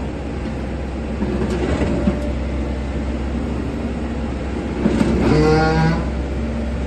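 Heavy machine engine running steadily with a constant hum, and a loud pitched tone lasting about a second, starting about five seconds in.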